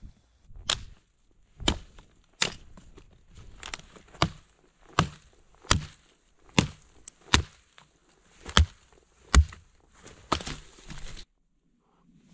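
Dry branches cracking and snapping under a boot as a pile of brushwood is stamped apart: a sharp crack about every second, a dozen or so in all, stopping abruptly near the end.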